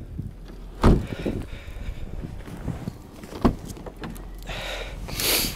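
Car door being worked in the snow: a loud thud about a second in, a second, lighter knock a few seconds later, then a short scraping hiss near the end.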